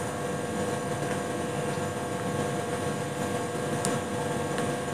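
Steady mechanical hum of railway-station ambience, a few even tones over a noisy background, with a few faint ticks.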